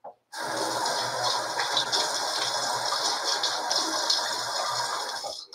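Sink tap running steadily while water is splashed onto a face before shaving. It comes on about a third of a second in and cuts off just before the end.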